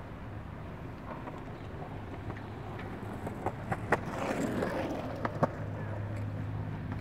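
Rolling noise of a bicycle riding along a paved path, over a steady low hum. About halfway through the rolling noise swells and there are several sharp clacks.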